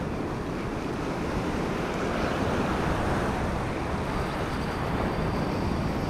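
Ocean surf washing over a rocky reef shelf, a steady rush of water noise, with wind buffeting the microphone.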